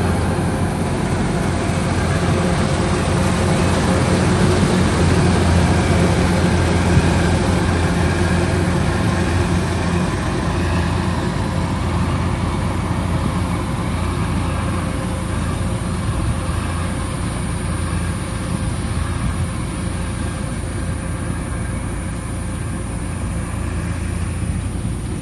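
Kubota rice combine harvester's diesel engine and machinery running with a steady low hum, getting slightly quieter over the second half.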